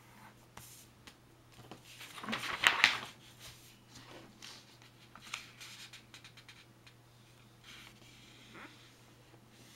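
A sheet of paper being handled and folded on a tabletop: rustling and creasing, loudest in a sustained rustle about two to three seconds in, then short crinkles and light taps as the corners are folded down.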